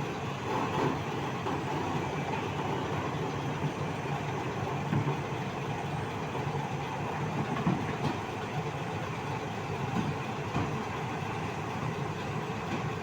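PC365 excavator's diesel engine running steadily, with a few short clanks of metal on metal as the machine is driven up for loading.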